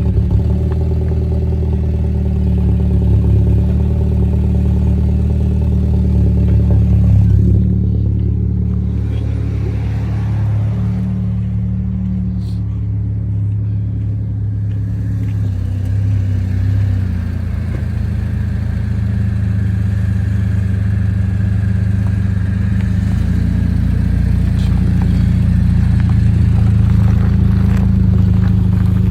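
Mercedes C230 engine running with a loud, low exhaust note, which the owner puts down to a hole in the muffler, or possibly the catalytic converter.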